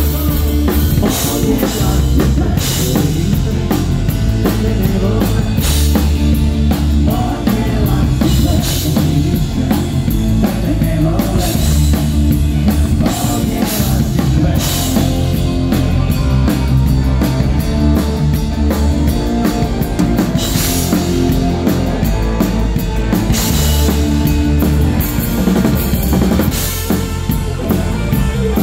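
Live rock band playing, heard from on stage right beside the drum kit, so the kick drum, snare and cymbals are up front over the rest of the band. Cymbal crashes come every three seconds or so.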